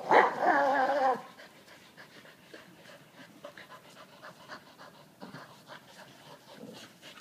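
Staffordshire bull terriers at play: one gives a loud, wavering whining cry about a second long right at the start. After that there is only faint panting and soft scuffling.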